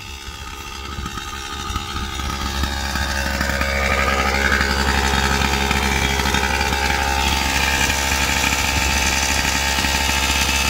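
Two-stroke gasoline engine of a Primal RC Raminator 1/5-scale RC monster truck idling. It grows louder over the first few seconds, then runs steadily.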